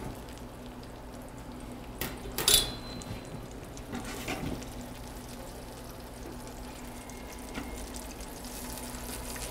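Pepper-crusted steak sizzling in olive oil in a sauté pan: a steady hiss over a low hum, with a couple of light clicks about two seconds in.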